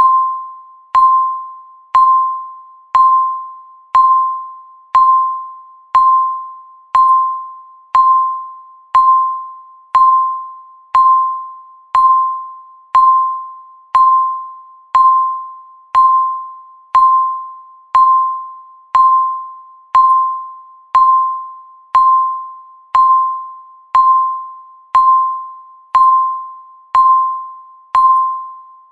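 Countdown timer's electronic beep once every second: a single mid-pitched tone that starts sharply and fades away before the next.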